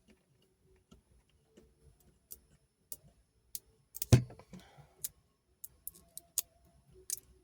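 Scattered small clicks and ticks of fingers picking at the plastic backing film on double-sided mounting tape to peel it off, with one louder knock about four seconds in followed by a brief soft crinkle.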